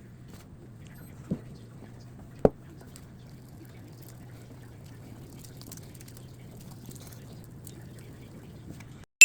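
Quiet kitchen background: a steady low hum with faint scattered ticks, and two light knocks, one about a second in and a louder one about two and a half seconds in. The sound cuts out to silence near the end.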